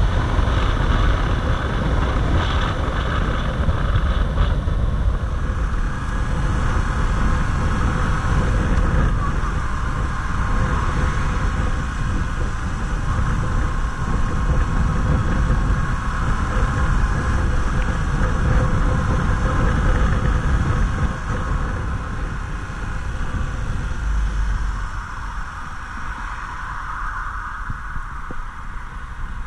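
Yamaha MT-07's parallel-twin engine running while riding, with wind noise buffeting the camera microphone; the sound gets quieter in the last third as the bike slows down.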